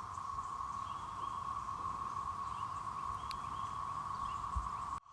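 Chorus of periodical cicadas: many males giving their mating call together as one steady, high-pitched drone.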